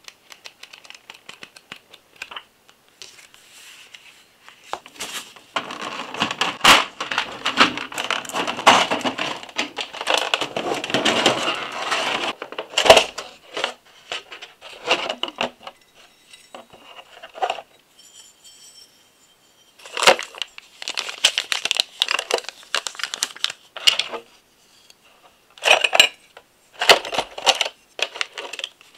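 Hands handling packaging: paper manual pages turning, then a clear plastic blister tray and lid crackling and rattling, with sharp clicks and light clinks of the metal engine-kit parts inside. The handling comes in bursts, densest for several seconds a few seconds in.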